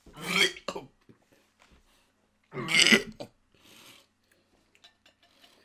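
A man gagging on a cricket he has just eaten: two loud, burp-like retching heaves about two and a half seconds apart, then a fainter one just after the second.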